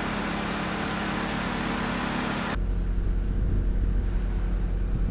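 Engine running steadily under a hiss. About two and a half seconds in, the sound cuts to a deeper, heavier rumble.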